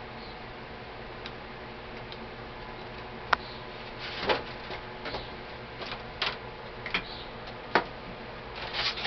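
Sharp metallic clicks and knocks from rifle parts being handled while an AK-47 is taken apart. They start about three seconds in, about half a dozen spread over the rest, over a steady low hum.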